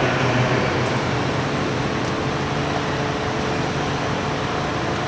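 Steady background noise of a large room, an even hiss with a faint low hum and no distinct event.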